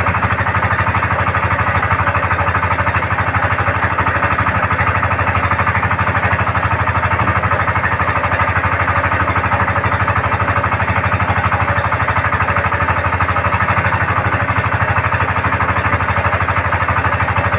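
Small boat engine running steadily at an even speed, with a fast regular chugging pulse.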